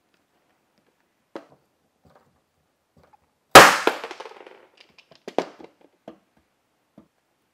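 A paintless dent repair pull tool yanking a hot-glued plastic tab off a steel car fender: one sharp, loud crack about three and a half seconds in as the glue lets go and the dent is pulled. A few lighter plastic clicks follow as the tool and tab are handled.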